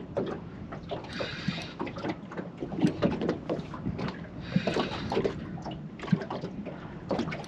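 Water lapping and washing around a small boat, with scattered light knocks and clicks.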